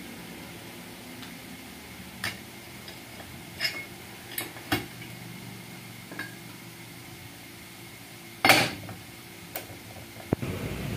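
Metal parts of a John Deere 5105 tractor's starter motor clinking and knocking as they are handled and fitted together. There are several short sharp clicks and a louder clank late on, over a steady low hum.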